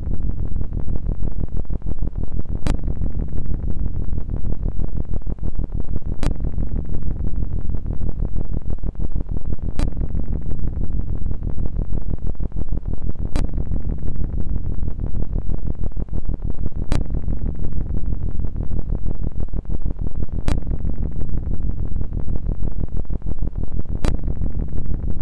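Digital glitch noise effect: a loud, low electronic buzz with a fast stutter, broken by a sharp click about every three and a half seconds.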